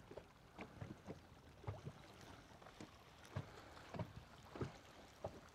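Near silence on a boat sitting on the lake, with faint soft knocks about every half second.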